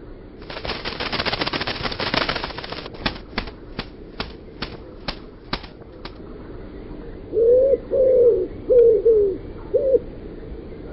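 White dove flapping its wings, a dense flurry for about two seconds and then about eight single wing claps, roughly three a second. Then four short coos, each rising then dropping in pitch.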